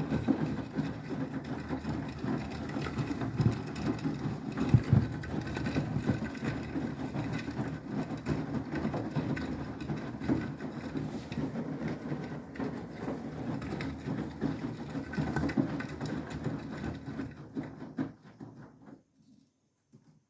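Beko WTK104121W washing machine tumbling wet laundry in its drum during the cool-down stage of a 90° wash: a steady churning rumble with irregular thumps that fades and stops about eighteen seconds in.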